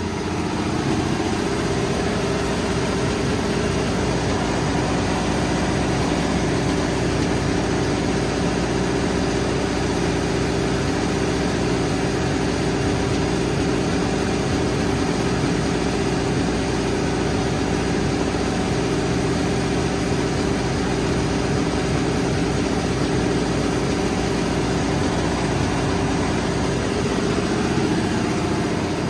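Cummins NTA-855-G2 diesel engine of a 300 kW generator set running steadily at its 1800 rpm governed speed. It is a 14-litre turbocharged inline six, and it gives an even, loud hum with a steady low drone.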